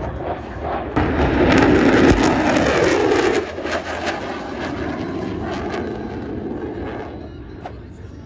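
Jet aircraft flying past. Its engine noise surges about a second in and drops in pitch as it passes, then fades away.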